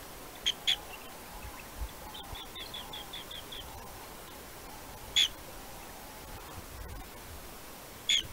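Green bee-eater calls: sharp, high chirps, a pair near the start, then a quick run of about eight short notes, then single louder chirps about five seconds in and near the end.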